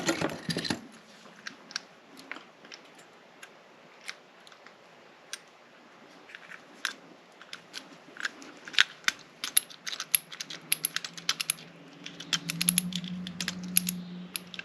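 Light metallic clicks and taps of locksmith tools working a lock cylinder. A short clatter comes at the start, then scattered clicks that turn into quick clusters from about nine seconds in.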